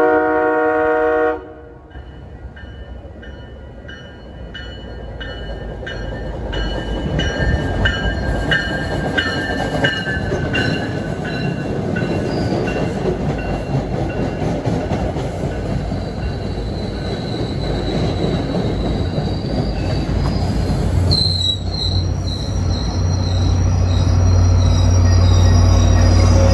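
MBTA commuter train, cab car leading, arriving and passing. A horn blast cuts off about a second in, then a bell rings steadily for several seconds as the rumble of the cars builds. Near the end, the GP40MC diesel locomotive at the rear passes with a loud, steady engine drone.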